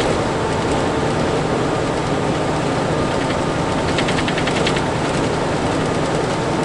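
Steady engine and road noise of a Freightliner semi truck under way, heard from inside the cab. About four seconds in, a fast rattle from behind the cab breaks in for under a second: an unidentified rattle that appears only while driving.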